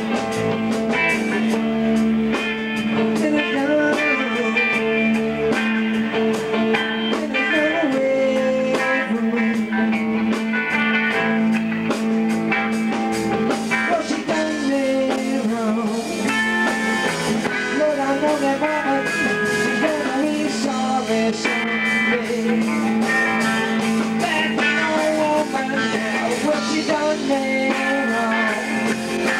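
Live band playing: electric guitars, electric bass and a drum kit, with a man singing at times.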